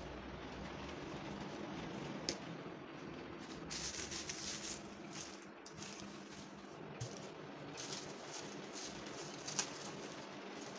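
Plastic food-prep gloves and parchment paper rustling and crinkling in short bursts as raw siopao buns are handled and set down, with two sharp clicks, over a faint steady hum.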